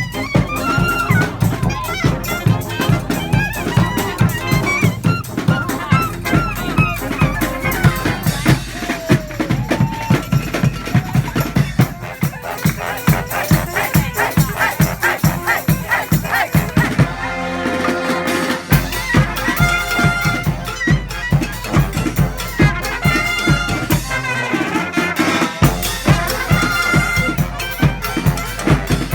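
A street brass band playing live: horns carry the tune over a steady, driving drum beat. The bass drops out for a moment about two-thirds of the way through, then the full band comes back in.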